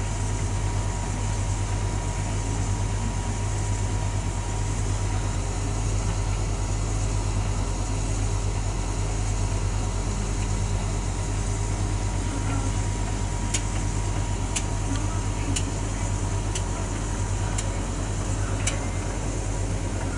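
Hotpoint Aquarius TVM570 tumble dryer running near the end of its cycle: a steady hum of the motor and turning drum. Over the last several seconds a light click comes about once a second.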